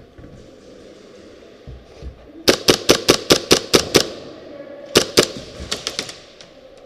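Airsoft gun firing a quick string of about eight sharp shots in a second and a half. Two more shots follow about a second later, then a few fainter ones.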